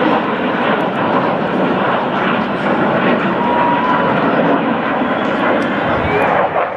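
Blue Angels jets flying in formation, a loud, steady jet engine noise.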